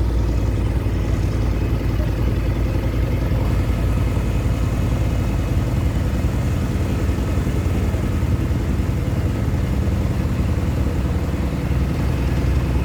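An engine running steadily with a low, even rumble, from machinery working at a water-main repair.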